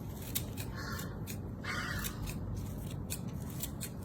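Fresh parsley being cut in a quick, even series of crisp snips, about three a second.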